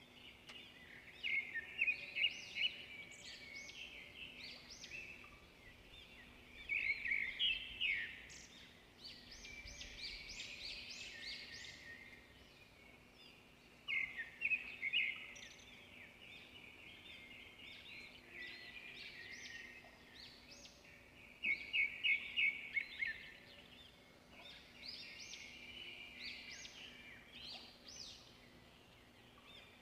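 Small birds chirping in short phrases of quick, high notes, separated by quieter gaps.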